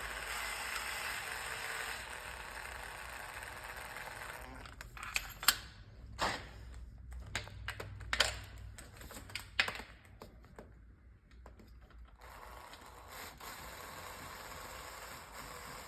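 A ratchet wrench undoing the bolts of a gearbox's selector-cable bracket, in two steady spells of ratcheting: one at the start and one from about twelve seconds in. Between them come several sharp metal clinks of tools and parts being handled.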